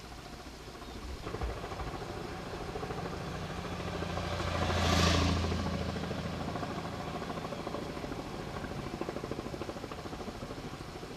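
A motor vehicle engine running steadily with a low hum, growing louder toward the middle as it passes and then easing off.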